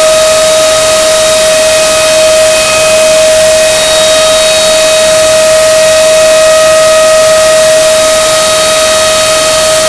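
Loud brown chicken screaming sound effect: one unbroken, steady high-pitched tone with a harsh hiss over it.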